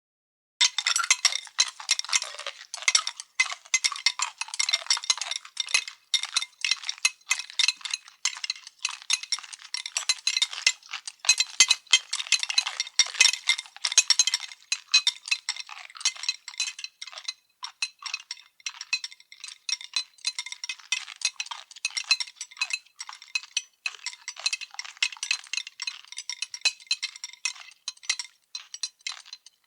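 Anime eating sound effect: dishes and cutlery clinking and clattering in a rapid, unbroken stream of sharp clicks, starting after a brief silence.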